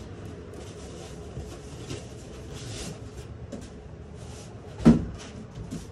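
Rustling and scraping of cardboard and packing material as things are lifted out of a large cardboard shipping box, with a few light knocks and one sharp thump about five seconds in.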